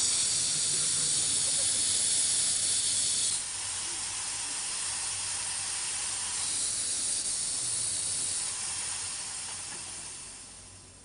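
Air hissing out of a car tyre as it is let down, strong for the first few seconds, weaker, then strong again before it dies away near the end.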